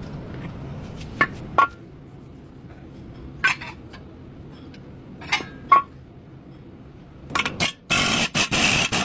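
Metal tools and brake parts clinking in a few separate sharp knocks, then a dense metallic rattle near the end.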